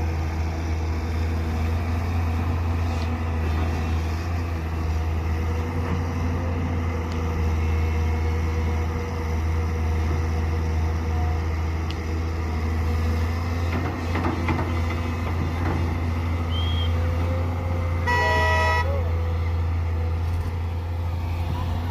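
Heavy diesel engines of an excavator loading a dump truck running steadily, a deep drone. Near the end a vehicle horn sounds once, a short honk of under a second.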